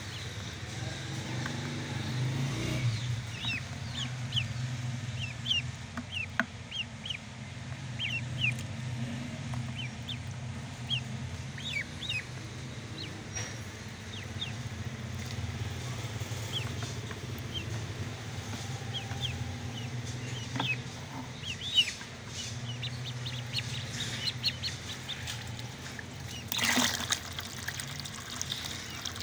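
Ducklings peeping: many short, high-pitched peeps scattered throughout, over a steady low hum. A brief burst of rushing noise comes near the end.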